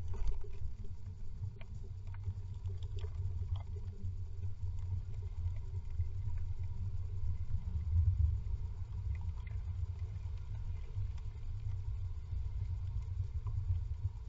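Low steady rumble with faint scratching and clicking inside a wooden nest box, as a brooding great tit shifts on its nest.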